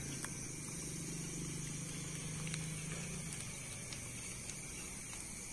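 Bonfire of jurema wood burning, with a few faint, separate crackles over a low steady hiss.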